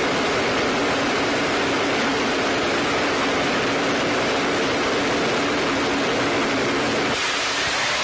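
Jet funny car's turbine engine running, a loud, steady rushing noise with a steady low hum under it, thinning slightly about seven seconds in.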